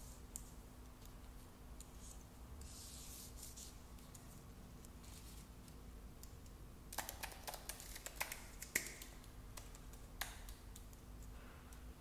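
Faint handling of an Apple Magic Keyboard with Touch ID and Numeric Keypad: soft rubbing as hands slide over it, then a quick run of light key clicks about seven to nine seconds in, with a few single clicks elsewhere.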